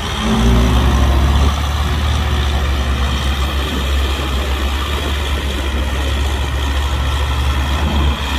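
Kubota tractor's diesel engine running steadily, a bit louder for about a second just after the start.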